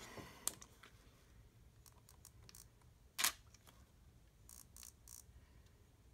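DSLR camera shutter firing, one sharp click about three seconds in, with lighter clicks and handling sounds around it and a quick run of three faint clicks near the end.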